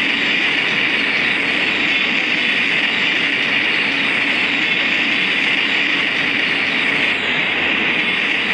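A Philippine National Railways train running on the rails: a loud, steady rush of wheel and track noise with no break.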